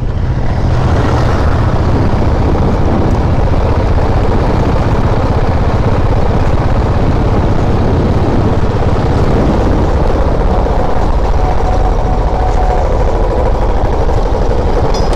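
Motorcycle riding at road speed: steady wind rush over the helmet-mounted microphone, with the engine running beneath it.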